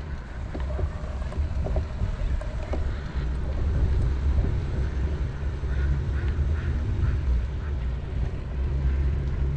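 Steady low rumble of wind and tyre noise on a bicycle-carried camera rolling along a paved path, with a few faint duck quacks around the middle.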